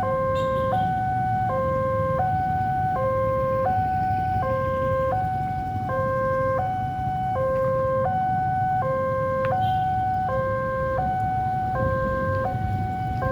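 Level crossing warning alarm sounding a steady two-tone signal, a lower and a higher tone alternating about every two-thirds of a second, warning that a train is approaching, with a steady low rumble underneath.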